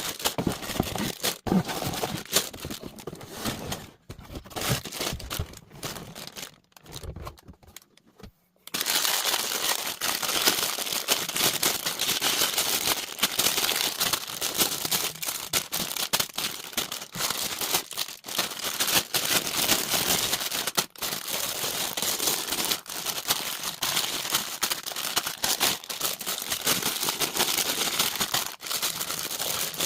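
Plastic LEGO parts bags being handled and torn open: sparse clicks and rustles at first, then, from about nine seconds in, dense crinkling that keeps going.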